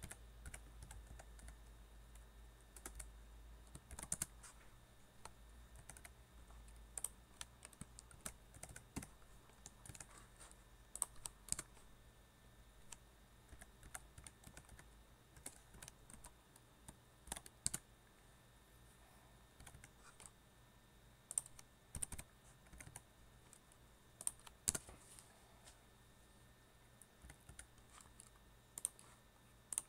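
Typing on a computer keyboard: irregular clusters of keystroke clicks with short pauses between them.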